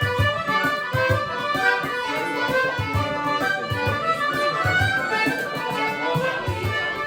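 Instrumental background music: a melody over a steady low beat.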